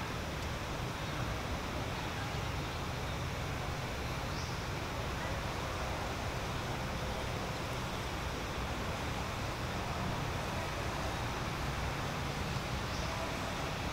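Steady outdoor background noise with a low rumble underneath and no distinct events, apart from two faint, brief high-pitched sounds about four seconds in and near the end.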